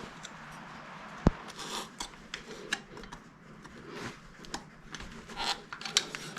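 Small clicks, rattles and scrapes of metal parts handled by hand, with one sharp click about a second in, as the lock cylinder is worked out of an old all-metal truck door handle by pressing down its spring-loaded retaining tab.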